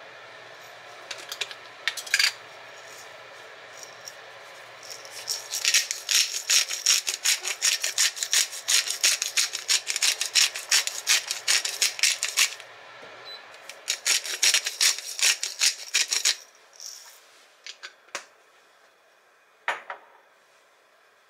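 Pepper mill grinding coarse black pepper: a rapid run of gritty grinding clicks lasting about seven seconds, a short pause, then a second run of about two seconds. A few separate clicks come before and after, and a low steady hum sits underneath until partway through.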